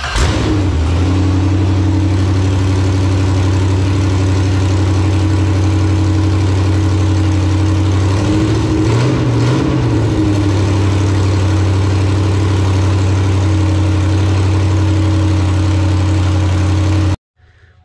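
Carbureted 5.3 L all-aluminum LS V8 (LC9) with an early LS1 cam, running on an engine stand through open headers, idling steadily just after its first fire-up. The revs rise briefly about nine seconds in, then settle back to idle, and the sound cuts off abruptly near the end.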